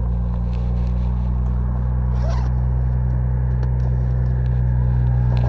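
Car engine idling steadily, with faint scrapes and clicks from tools being worked in at the top of a car door.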